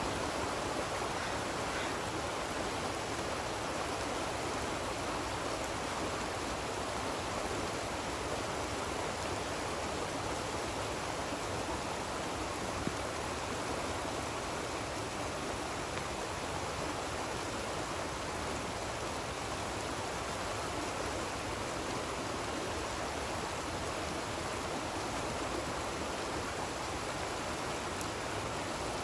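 Fast, shallow stream rushing over rocks: a steady, even rush of water.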